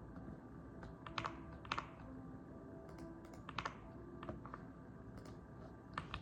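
Mechanical keyboard keys being pressed in scattered, irregular strokes, a few clicks at a time, over faint steady background music.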